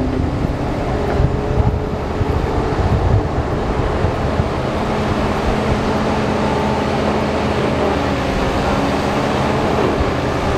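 Heavy machinery's diesel engine running steadily under load, a continuous low rumble with a few held tones.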